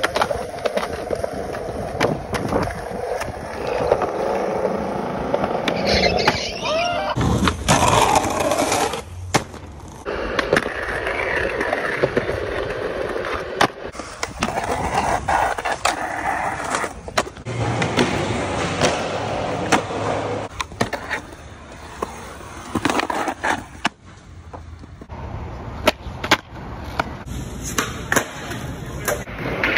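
Skateboards rolling on concrete, the wheels running in a steady noise broken by many sharp clacks of tail pops, board flips and landings, across several short clips.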